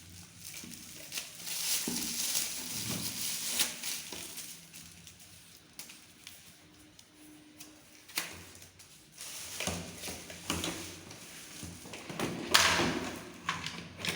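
Plastic parts of a Philips PowerPro vacuum cleaner being handled and fitted together, with irregular clicks, knocks and rustles. The loudest knock comes near the end.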